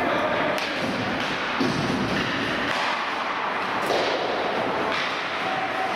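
Ice hockey play in a rink: a steady scraping hiss of skates on the ice, broken by a few sharp knocks.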